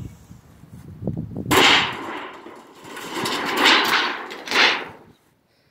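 Tin roofing sheet being pried off a wooden shed, the metal scraping and rattling as large nails pull out of the wood. It comes in several long, harsh surges after a few knocks, and cuts off suddenly near the end.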